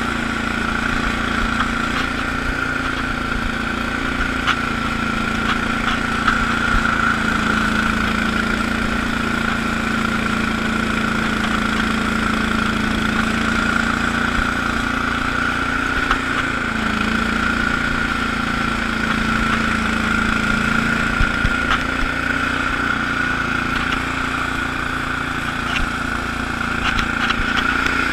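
Allis-Chalmers HB-112 garden tractor's engine running steadily while powering a 48-inch Sweepster rotary broom that sweeps snow. The engine note sags briefly about halfway through, then recovers.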